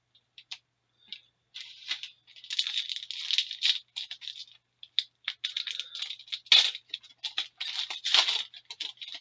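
Hockey trading cards being handled: a run of quick, crisp rustles, snaps and clicks as cards slide against each other and are flipped through.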